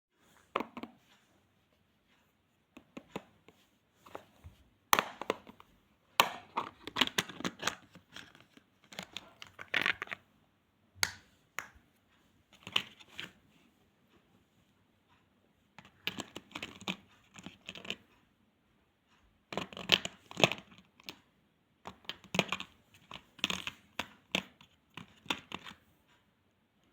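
Packaging of a watercolour paint box being torn open and crinkled by hand, in irregular bursts of rustling and tearing with sharp clicks and short pauses between.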